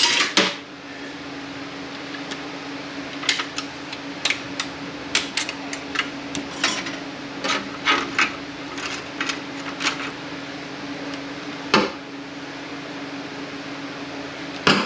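Metal transmission parts clicking and clinking irregularly as a clutch pack is taken apart by hand, snap ring and clutch plates, over a steady low hum.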